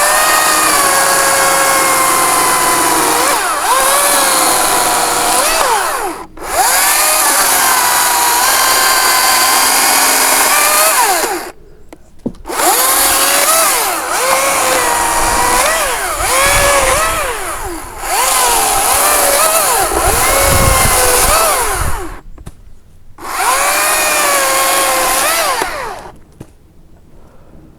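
Makita 40V battery top-handle chainsaw run in five bursts, its whine sagging in pitch and recovering as the chain bites into dead branches.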